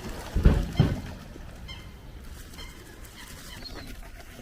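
Birds squabbling over thrown bread: two loud short calls or scuffles about half a second in, then a few faint high calls.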